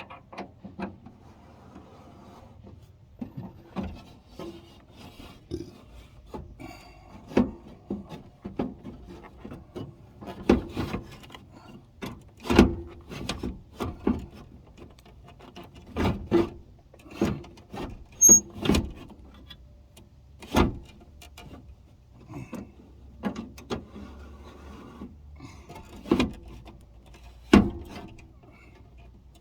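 Irregular knocks, clicks and rubbing from hand work on the rear door's window sweep and trim of a 1984 Buick LeSabre. There are a dozen or so sharper knocks among quieter scraping.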